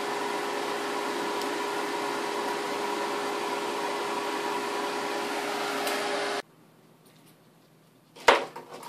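Pet grooming blow dryer blowing with a steady airy rush and a steady hum, stopping abruptly about six and a half seconds in. A single sharp click follows near the end.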